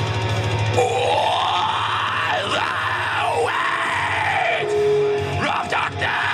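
Heavy metal band playing live, with a wailing high line that glides up and swoops down several times over the full band.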